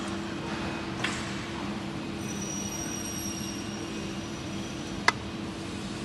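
Steady low machine hum of an aluminium corner crimping machine running, with a light click about a second in and a sharp metallic click about five seconds in.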